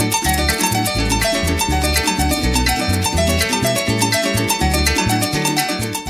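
Instrumental background music: plucked strings over a bass line, with a quick, steady beat.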